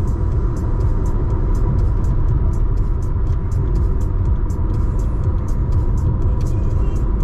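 Steady low rumble of a car driving, with background music over it carrying a regular ticking beat a few times a second.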